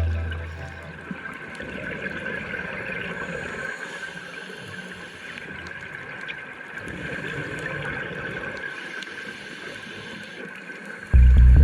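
Steady rushing of water with a faint, steady high hum. Background music with a heavy bass fades out at the start and cuts back in loudly near the end.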